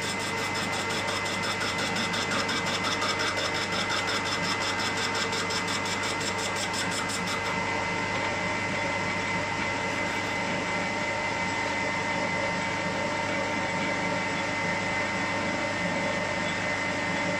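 Small metal lathe running with a steady hum and whine, its chuck spinning a cylinder end cap as the tool works it. For roughly the first seven seconds a fast, fine, high ticking sits over the hum, then stops.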